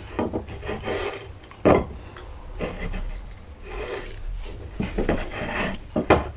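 A banana being pushed around on a ceramic plate by a mouth: irregular scraping, rubbing and rustling of the peel against the plate, with two sharp knocks, one about two seconds in and one near the end.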